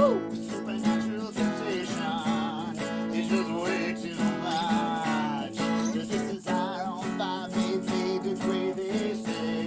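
Acoustic guitar strumming chords in an instrumental break, with a wavering lead melody gliding over it.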